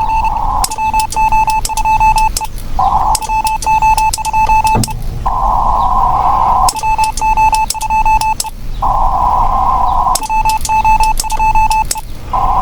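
Morse code (CW) tone from an Icom IC-7610 transceiver's receiver: four keyed groups of dots and dashes about 1.5 s long, a few seconds apart. Between them is the hiss of the band heard through a narrow CW filter.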